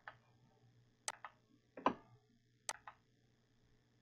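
Computer mouse clicking: three quick pairs of clicks about a second apart, the middle one the loudest.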